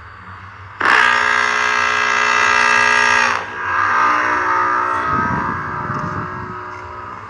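A 'megahorn' sound effect: a loud, distorted horn blast with a rich buzzy tone. It starts suddenly about a second in and cuts off after about two and a half seconds, then a second, softer horn tone follows and slowly fades.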